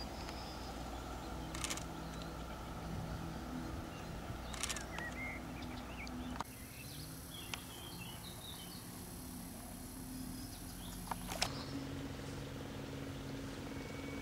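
Faint outdoor ambience: a low steady hum with scattered bird chirps and a few brief clicks.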